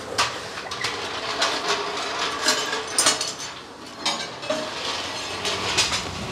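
Irregular metallic clinks and knocks of workshop tools and parts being handled, the loudest a little after the middle, over a steady background noise.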